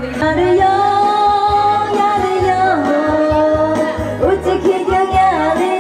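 A song with a sung melody over instrumental backing and a repeating bass beat. The voice holds long wavering notes and slides between pitches.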